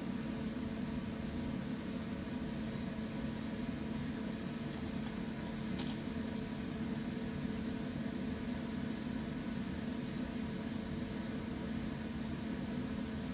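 Electric fan motor running with a steady hum and whir. Two faint clicks about six seconds in.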